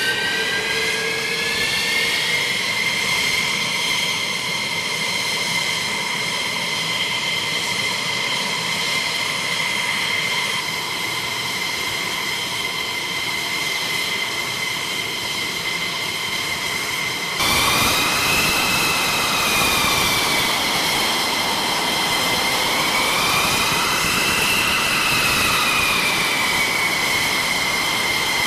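F-16C Block 52 fighter's Pratt & Whitney F100 turbofan running at ground idle: a steady high-pitched whine over a rushing noise, edging up in pitch over the first couple of seconds and then holding. Past the middle the sound turns abruptly louder and the whine wavers slowly up and down in pitch twice.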